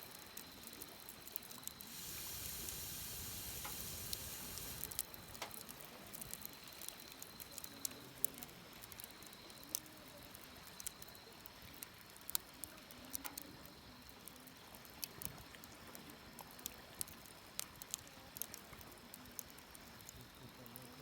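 Wood fire crackling, with sharp pops scattered irregularly throughout. A louder hiss swells for about three seconds, starting some two seconds in.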